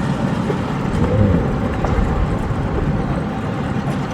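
Steady low engine rumble with no single event standing out.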